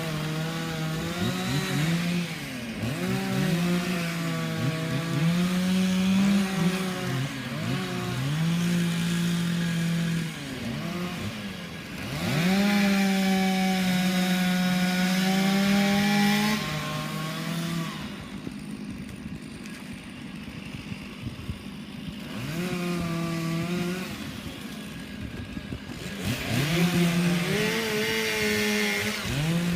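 Two-stroke chainsaw revving up and down: long stretches held at high revs, with short dips in pitch between them. About two-thirds of the way through it drops back to a quieter run for a few seconds, then revs up again near the end.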